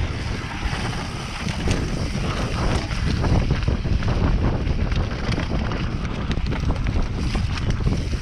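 Mountain bike descending dirt singletrack, heard from the rider's camera: wind rushing over the microphone, with the tyres rolling on dirt and the bike rattling over bumps in many short knocks.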